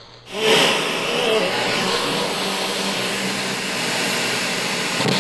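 FM radio receiver giving out a loud, steady static hiss with a faint hum, the sign of interference on the toy FM microphone's weak transmission. The hiss comes in about a third of a second in.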